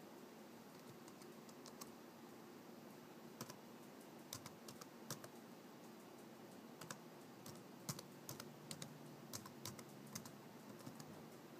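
Faint computer keyboard typing: scattered single keystrokes, sparse at first and coming more often from about halfway through.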